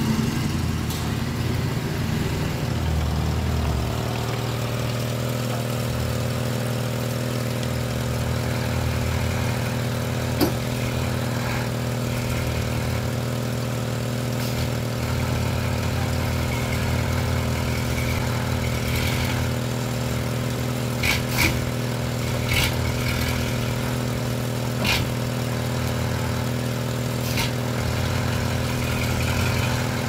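Heavily loaded logging truck's diesel engine running steadily at low speed under its load of logs, with a few short sharp clicks in the second half.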